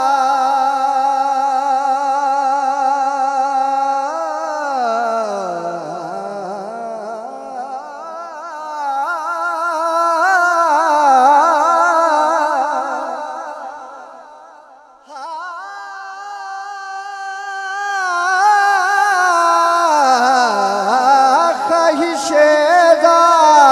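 A man sings a naat solo into a microphone in drawn-out, wordless ornamented phrases. He holds long notes, glides down in pitch and back, and adds wavering turns. There is a short break about fifteen seconds in before he goes on.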